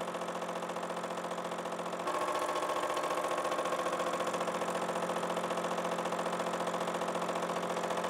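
Vertical milling machine taking a facing cut across a rusty steel bar with a spinning face-mill cutter: a steady motor and spindle drone with a fast, even pulse, becoming a little louder and brighter about two seconds in.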